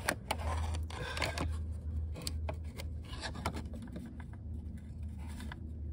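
Scraping and rubbing with scattered clicks, over a steady low hum: hands rocking the fan and water-pump pulley of a Range Rover L405 5.0 supercharged V8 to show play in the water pump, a worn pump that is weeping coolant.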